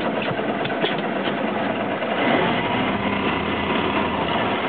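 Boat engine idling, a steady running sound.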